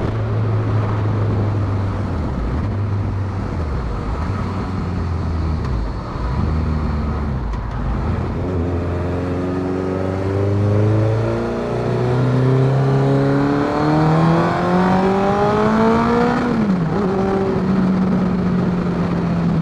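Honda CBR1100XX Blackbird's inline-four engine running under way. From about eight seconds in, the bike accelerates with the engine note rising steadily to a peak about sixteen seconds in, then dropping back and holding steady.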